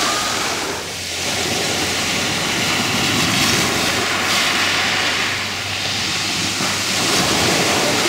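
Black Sea surf: small waves breaking and washing up a pebble beach, a steady rushing sound.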